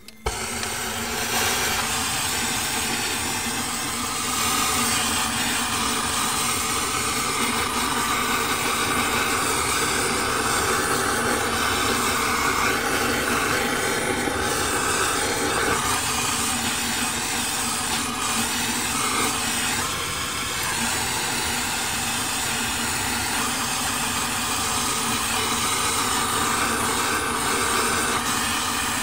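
Gas blowtorch flame blowing with a steady hiss while it scorches a wooden log. It starts suddenly just after the beginning.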